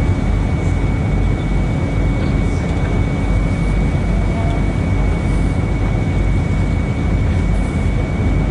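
Whale-watching boat's engines running steadily under way: a loud, even low rumble with a faint steady high whine over it.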